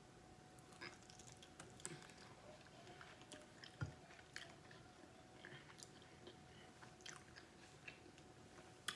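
Faint chewing and mouth sounds of a person eating, with scattered small clicks and a low thump about four seconds in.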